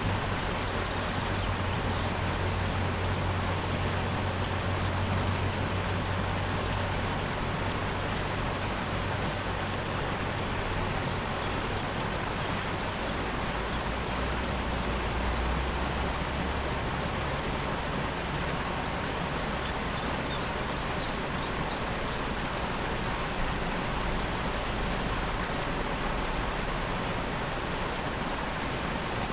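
Steady rushing of a waterfall, with a small bird singing quick runs of high chirps three times: at the start, about a third of the way in, and again about two-thirds through.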